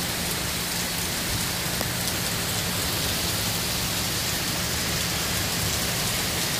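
Heavy rain pouring down steadily, a constant even hiss of rain hitting the street, with a low steady hum underneath.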